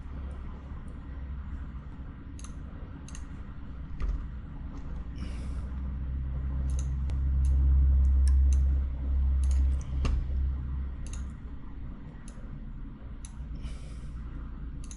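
Computer mouse clicking, with about fifteen scattered single clicks over a low hum that grows louder for a few seconds in the middle.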